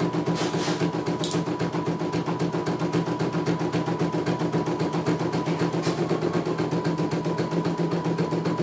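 CNY E900 portable computerized embroidery machine stitching a design, its needle going in a rapid, even rhythm over a steady motor hum.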